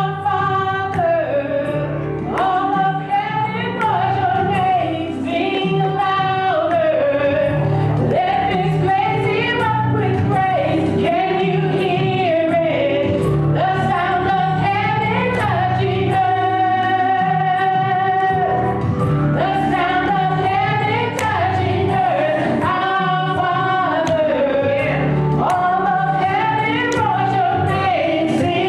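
Gospel singing with music, the voices sliding between notes and holding some long notes.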